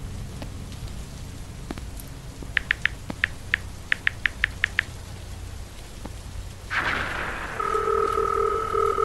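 Mobile phone keypad beeps as a number is tapped in, about eleven quick beeps over two seconds. After a brief rush of noise, a steady telephone ringing tone follows as the call is placed.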